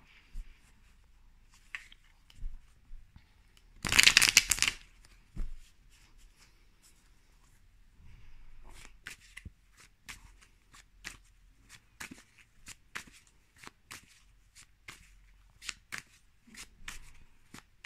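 A tarot deck being shuffled by hand. About four seconds in there is a short, loud flurry of cards. From about halfway on the cards click softly against each other several times a second.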